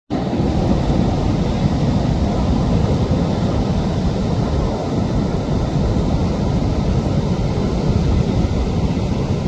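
Wind buffeting the microphone over the sea's surf: a steady low roar that does not let up.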